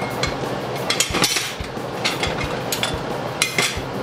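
Clinks and knocks of a utensil against a stew pot, in a few quick clusters: several around the start, a group about a second in, and another near the end, the loudest with a short ring.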